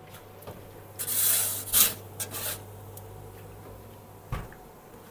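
Perforated metal pizza peel scraping across the oven's baking stone as it slides under the baked bread: one long scrape about a second in, then a few shorter ones. Near the end the oven door shuts with a short thump, and a steady low hum underneath stops with it.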